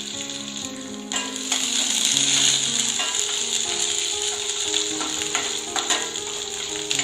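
Chopped shallots frying in hot oil with mustard seeds and curry leaves in a kadai: a steady sizzle with a few short clicks scattered through it.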